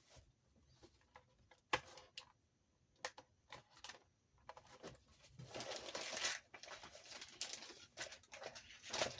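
Scattered clicks and taps of small plastic and metal RC car parts being handled and fitted by hand, with a stretch of rustling and scraping about halfway through.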